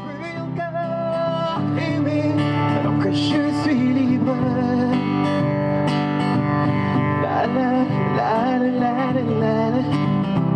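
A solo singer accompanying himself on acoustic guitar, the guitar playing steady chords with a voice singing a melody over it. It fades in over the first two seconds.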